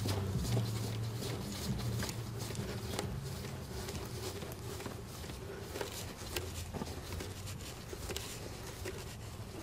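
Faint rustling and small clicks of hands working a spin-on oil filter onto its mount under a diesel truck engine, over a steady low hum that slowly fades.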